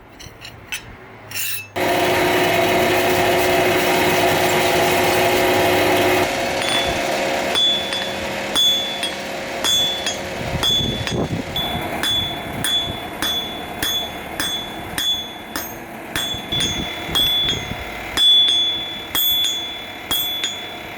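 A hammer striking leaf-spring steel on an anvil, about two blows a second, each with a short high ring. Before the blows, a steady machine hum runs for a few seconds and stops suddenly.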